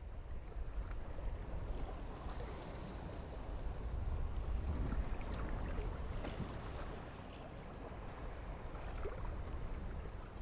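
Low rumbling noise with a faint hiss above it, swelling a little midway and easing toward the end, with a few faint clicks.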